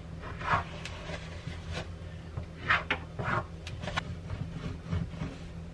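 Short, irregular rubbing and scraping strokes as fresh caulk is pressed and worked along the seam between a stainless-steel sink and the wall. A low steady hum runs underneath.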